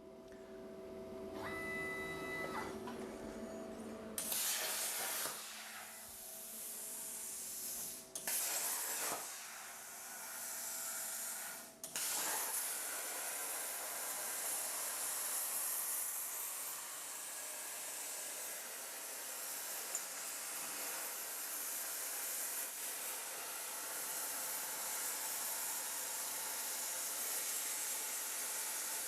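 CNC plasma cutter torch hissing as it cuts stainless steel plate. A short tone comes first; the hiss starts about four seconds in, breaks off briefly twice, then runs steadily.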